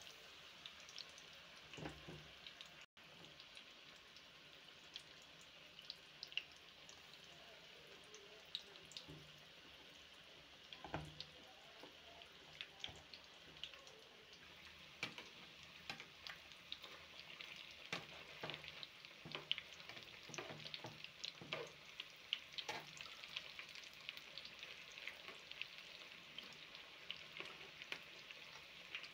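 Vegetable balls deep-frying in hot oil: a steady sizzle with frequent pops and crackles, growing busier in the second half.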